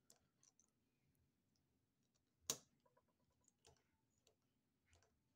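Faint, sparse clicks of a thin steel tool and small trigger parts as a trigger spring is worked into place on a Ruger EC9s trigger housing, with one sharper click about two and a half seconds in.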